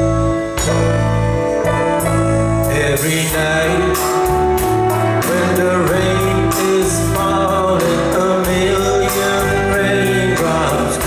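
Live rock band playing with electric guitars, bass guitar and drums. A male lead voice starts singing about three seconds in.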